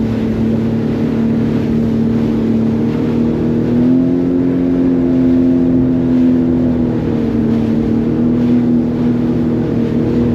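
Jet ski engine running under way, its pitch rising a little about four seconds in and settling back down a few seconds later.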